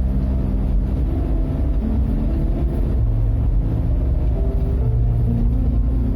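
Toyota Kijang Kapsul's 7K four-cylinder petrol engine and road noise while driving: a steady, loud low rumble.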